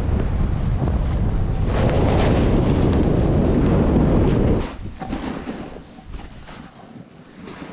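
Wind rushing over the camera microphone during a fast downhill run on snow, with the hiss of snow sliding underfoot. The rush drops off suddenly about four and a half seconds in, leaving a much quieter hiss.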